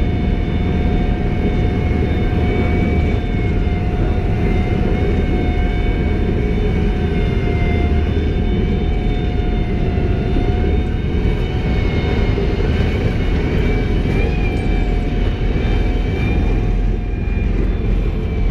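M1 Abrams tank on the move, heard from on top of its turret: a steady high whine from its gas-turbine engine over a constant low rumble of tracks and running gear.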